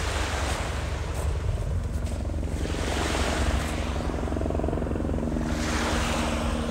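Wind rumbling on the microphone over the steady drone of a distant engine holding one pitch, with small waves washing in on the shore twice.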